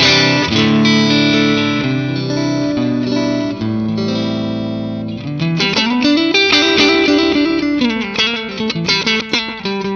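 Electric guitar, a Stratocaster-style, played through a Valeton GP200R multi-effects pedal on a clean, Fender-amp-style preset at the edge of break-up. Ringing chords for about five seconds, then busier, harder-picked notes and strums that bring out a little overdrive grit.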